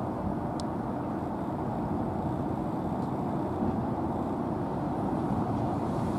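Steady low background rumble, with one brief high tick about half a second in.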